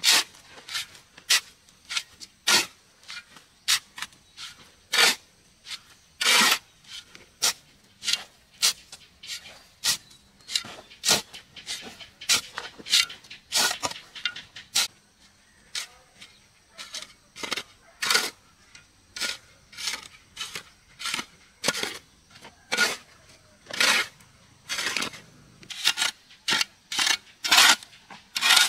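Repeated short scraping strokes, irregular, about one to two a second.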